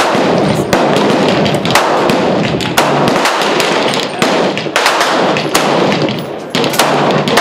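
Rifle shots from neighbouring shooters on the firing line, one or two a second at times, each sharp crack followed by echo under the range's roof.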